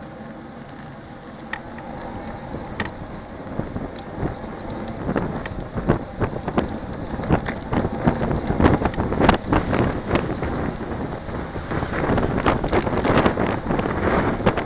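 Wind rushing over a small action-camera microphone on a moving electric unicycle. It builds from about two seconds in into gusty buffeting with crackles, over a steady high whine.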